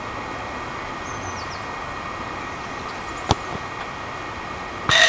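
A football kicked once, a single sharp thud about three seconds in, over a steady outdoor background hum. Near the end a louder, steady high-pitched whine with hiss starts and keeps going.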